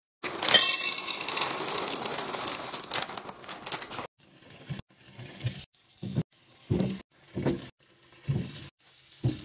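A plastic snack bag crinkling as mixed nuts pour out of it into a glass jar, for about four seconds. Then short splashes and knocks come about every half-second as produce is rinsed under a tap in a steel sink.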